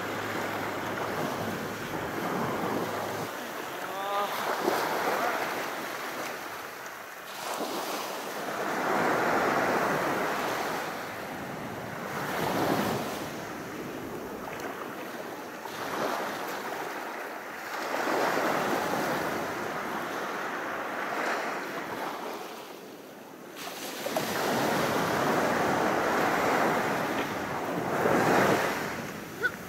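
Sea waves washing in on a beach, a steady hiss that swells and ebbs every few seconds.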